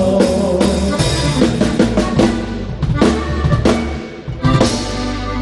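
Live band music with the drum kit prominent: a run of snare and bass drum hits over bass and held instrument notes, a brief drop about four seconds in, then a sustained closing note.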